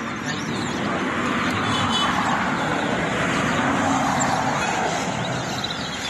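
A motor vehicle passing along the street, a steady rushing noise that swells to its loudest around the middle and fades near the end. Faint chirps of caged towa towa finches come through near the end.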